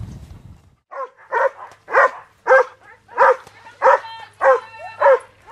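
A dog barking repeatedly: about eight loud barks at an even pace, nearly two a second, starting about a second in.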